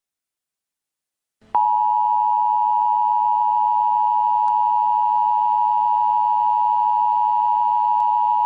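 Emergency Alert System attention tone: a loud, steady electronic alarm tone that starts abruptly about a second and a half in, after silence, announcing an emergency warning.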